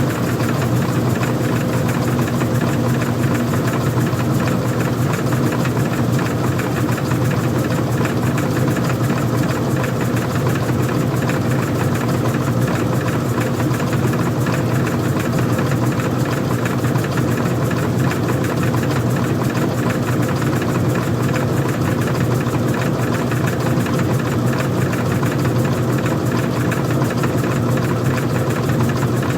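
Old-style front-loading washing machine running, its motor and drum giving a steady, even hum with no let-up.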